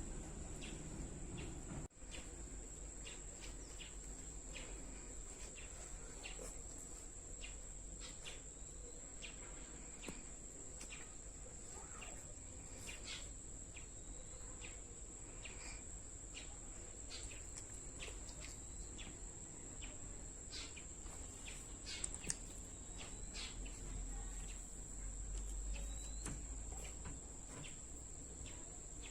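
Faint, steady high-pitched insect chirring, like crickets, with scattered soft clicks.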